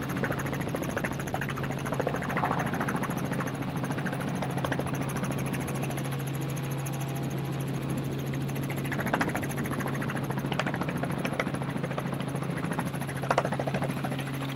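An engine running steadily at one constant pitch, a low drone with rattling noise over it and a few light ticks.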